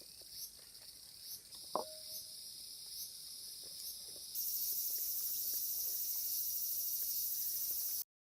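Insects calling in an outdoor summer chorus: a high-pitched pulsing song repeating a little more than once a second, joined about four seconds in by a louder, steady high buzz. A single sharp click sounds near two seconds in, and the sound cuts off abruptly just before the end.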